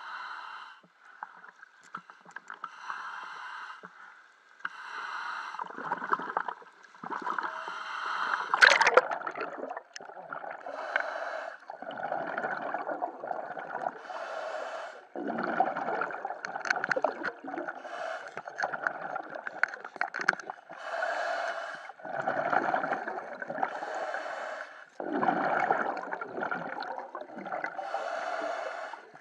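Scuba diver breathing through a regulator underwater: hissing inhalations alternating with bubbling exhalations every few seconds. A brief sharp noise about nine seconds in is the loudest moment.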